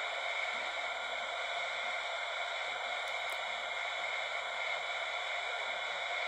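Fisher-Price toy walkie-talkie's speaker giving a steady hiss of radio static while it listens for transmissions.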